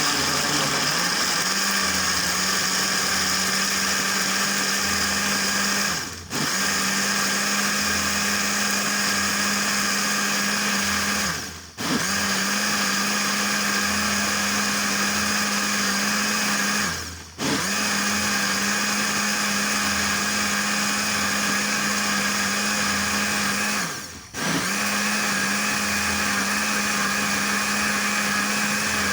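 Electric kitchen blender motor running steadily at speed with a high whine. Four times it briefly spins down, its pitch and loudness sagging for about half a second, then snaps straight back to full speed.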